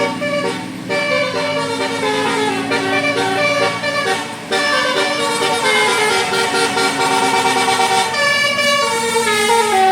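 Telolet Basuri bus horn playing a tune: several air-horn trumpets sound short stepping notes in quick succession over a steady low drone, with a brief break about four and a half seconds in.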